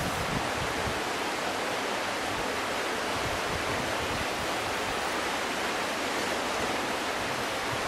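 Steady rushing of flowing water: an even, unbroken hiss with no changes.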